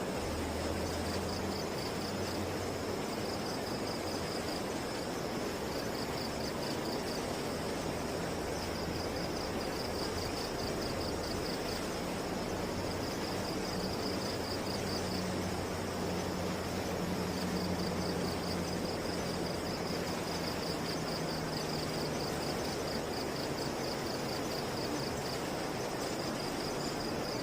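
Dusk insects chirping in repeated pulsing trains over the steady rush of a river, with a low steady hum underneath.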